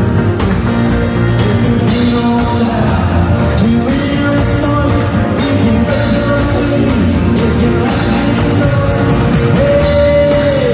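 Live rock band recording with a singer's voice over a steady beat, rock-and-roll style.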